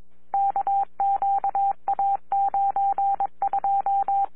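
Police radio tone over a scanner feed: one mid-pitched beep repeated rapidly in irregular runs, over a faint steady hum.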